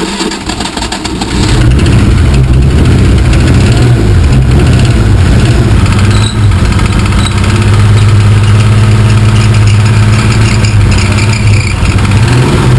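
BMW M30 straight-six engine running loud and close; its note swells about a second in and then holds steady at an elevated idle.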